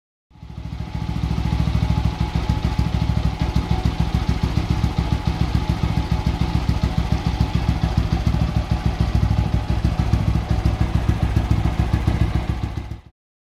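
TVS Apache RTR 200 4V's single-cylinder four-stroke engine running steadily at idle, with a quick rise at the start and a sudden cut-off near the end.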